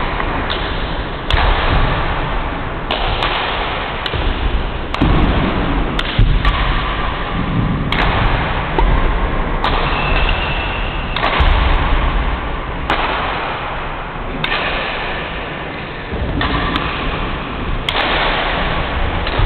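Badminton rackets striking a shuttlecock during rallies: repeated sharp cracks, roughly a second or more apart, over a loud, steady rushing background noise.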